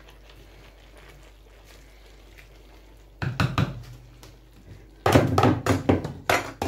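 Kitchen utensils knocking against a cooking pan: a couple of knocks about three seconds in, then a quick run of louder knocks near the end.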